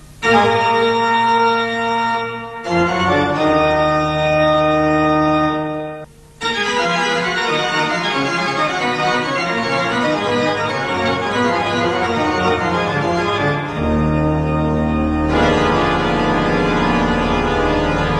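Pipe organ playing: sustained chords, a brief break, then fast running passages, ending on held chords over a deep pedal bass note.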